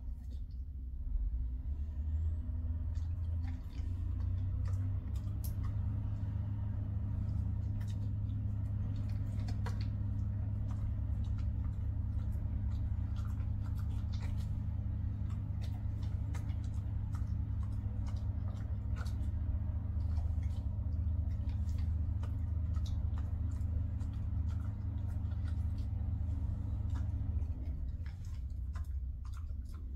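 A steady low machine hum with a fainter higher tone over it; it comes in about a second in and stops near the end. Small scattered clicks and ticks sound over it.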